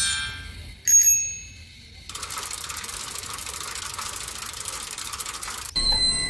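Bell-like chime tones ringing at the start, a single bright ding about a second in, then a steady hiss for about three and a half seconds, and more ringing chime tones near the end.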